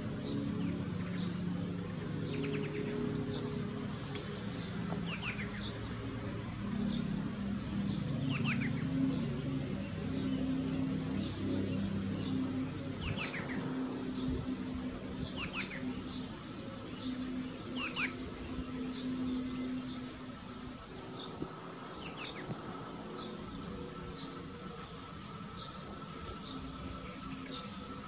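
A small bird calling in short, high, falling chirps, repeated every two or three seconds, over a low steady rumble.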